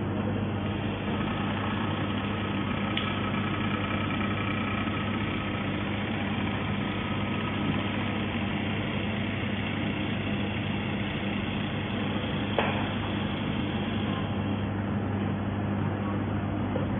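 Robot laser welding machine running: a steady electrical machine hum with faint high whines in the first few seconds and a single sharp click about twelve and a half seconds in.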